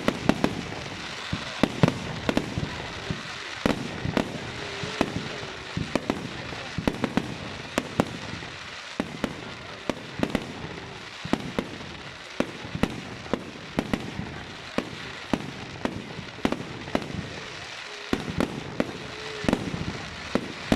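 Fireworks going off in a display: a continuous, irregular run of sharp bangs and cracks, several a second, over a steady hiss.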